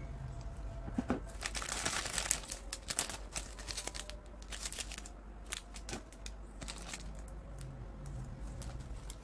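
Plastic instant-noodle wrapper and foil and plastic seasoning sachets crinkling as they are handled. There is a dense stretch of crackling a second or two in, then lighter, scattered crinkles.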